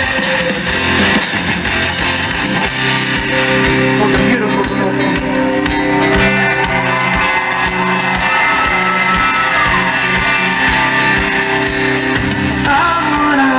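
Rock band playing live: electric guitar over bass and drums, the guitar holding long notes with a few sliding, falling notes, in a stretch without lead vocals.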